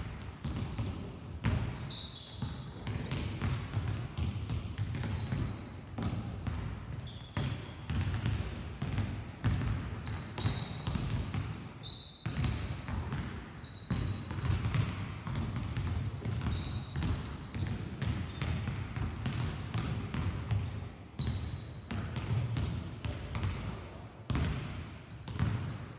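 Several basketballs being dribbled and bouncing on a sports-hall floor at once, a dense, irregular patter of overlapping thuds. Short high squeaks of sneakers on the floor are mixed in.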